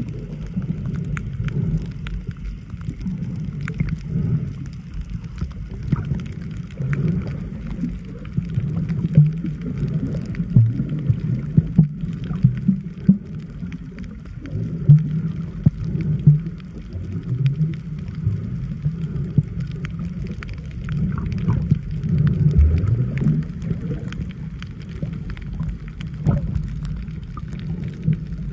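Water heard through a camera held underwater: a low, muffled rumble and sloshing with scattered faint clicks.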